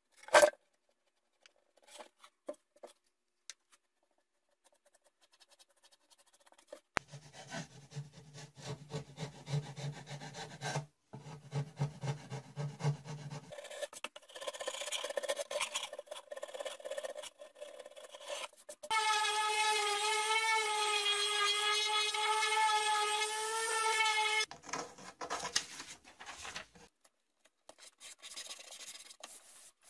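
Plywood being rubbed down by hand in rhythmic back-and-forth strokes, with a sharp knock at the very start. Midway a steady whine runs for about five seconds, then the scraping and handling resumes.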